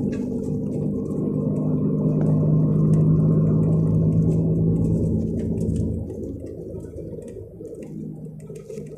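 The 360 hp MAN diesel engine of a MAN Lion's Regio coach running under way, heard from on board. It grows louder for a few seconds, then eases off about six seconds in.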